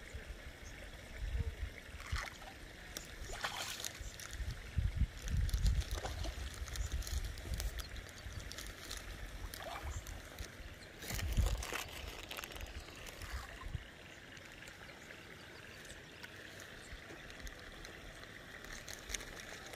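Fish splashing and swirling at the surface of a pond, with a few sharper splashes, about two seconds in, then three and a half, then eleven and a half. Intermittent low rumble through the first half, then the water goes quieter.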